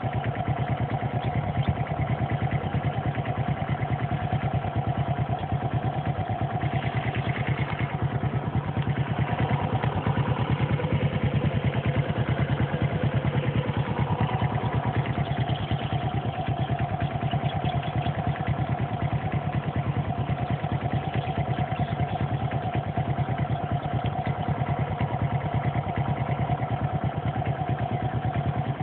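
Stock single-cylinder four-stroke engine of a Honda XRM RS underbone motorcycle idling steadily after its break-in, with an even, rapid beat that holds an unchanging pace.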